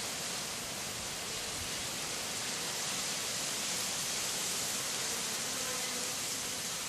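Many Japanese honeybees buzzing around a hive entrance: a faint wavering hum under a steady hiss.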